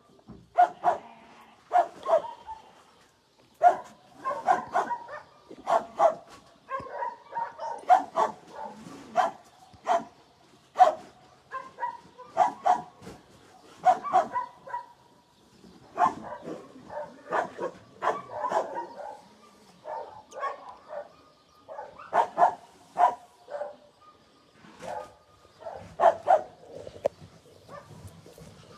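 Shelter dogs barking over and over in short, quick barks, some overlapping.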